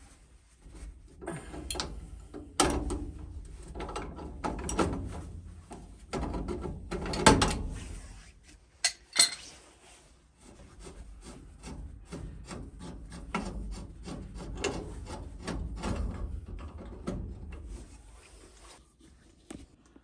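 Wrench work loosening the gas-line union at a furnace gas valve. Irregular metal scraping and knocking comes first, then a run of quick clicks through the second half.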